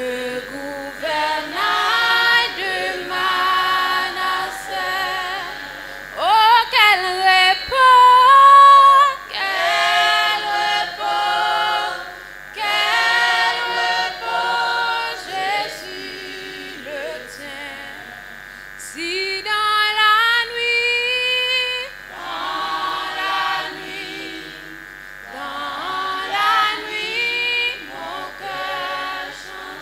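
Choir of young, mostly female voices singing, in phrases with short pauses between them.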